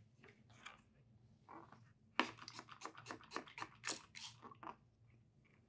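Plastic trigger spray bottle pumped quickly about ten times, a run of sharp squirting clicks about halfway through, priming the sprayer before watering. Faint handling of the bottle comes before the clicks.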